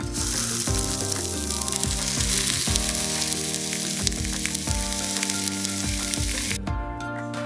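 Raw minced-beef rolls wrapped around dry spaghetti frying and sizzling in oil in a frying pan. The sizzling cuts off suddenly shortly before the end, over steady background music.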